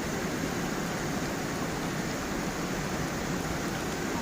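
Small forest waterfall and stream, water rushing steadily over stones.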